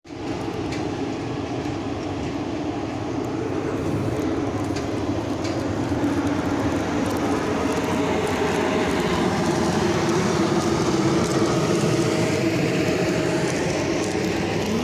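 ChS2 and ChS8 electric locomotives hauling a passenger train pull away and pass close by, with a steady rumble of wheels and running gear that grows slightly louder as the train gathers speed. A faint steady whine runs through the middle of it.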